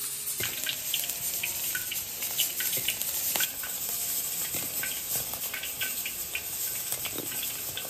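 Battered pork strips deep-frying in oil in a wok: a steady sizzle with many small pops and crackles.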